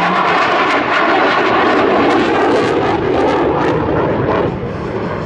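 KAI T-50 Golden Eagle jet trainer in flight, its single General Electric F404 turbofan making a loud, steady jet rush that drops in level about four and a half seconds in.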